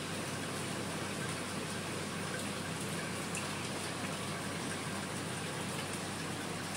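Aquarium filter running: a steady rush of moving water over a low electrical hum.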